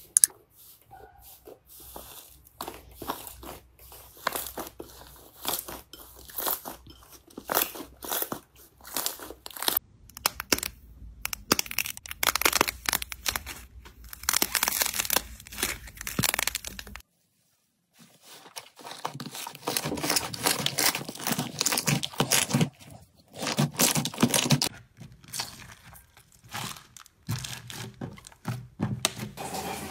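Hands pressing and kneading slime, making a dense stream of small crackling pops and clicks, with crinkling plastic film around the slime in the later part. The sound cuts out for about a second some 17 seconds in.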